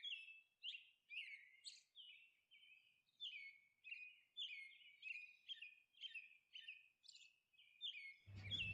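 Faint bird chirping: a string of short, high chirps and twitters, repeated irregularly throughout.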